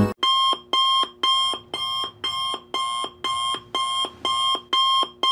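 Electronic timer alarm beeping in a steady repeating pattern, about two warbling beeps a second, signalling that the countdown has run out.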